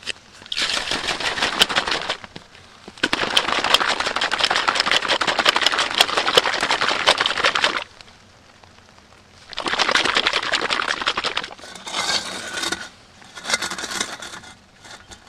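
Plastic protein shaker bottle shaken hard, a fast rattling clatter of its contents in three long bursts with short pauses between. A few shorter, weaker clatters follow near the end.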